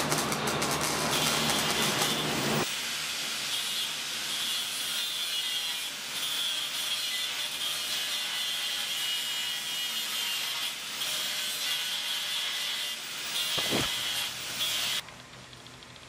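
Electric arc welding on steel roof-rack bars: a steady crackling sizzle of the arc that stops abruptly near the end. A low hum underneath drops away about three seconds in.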